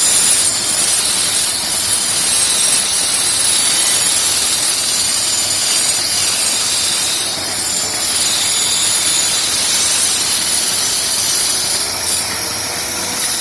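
A power-tool motor running steadily on a homemade wood copying machine: a loud, even hiss with a high-pitched whine over it. It dips slightly about seven seconds in and again near the end.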